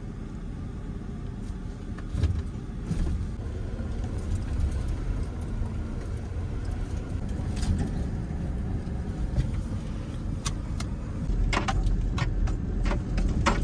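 Pickup truck driving slowly over a rough trail, heard from inside the cab: a steady low engine and road rumble, with the key ring in the ignition jangling. Knocks and rattles grow more frequent and louder near the end.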